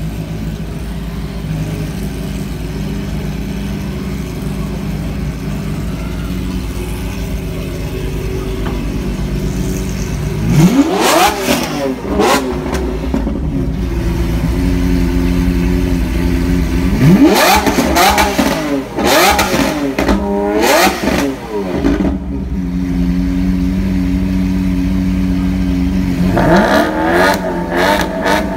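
Lamborghini Aventador LP700-4's 6.5-litre V12, fitted with an ARMYTRIX header-back valvetronic exhaust, idling steadily, then revved: one sharp rev about ten seconds in, a quick series of blips around the middle, and another rev climbing near the end.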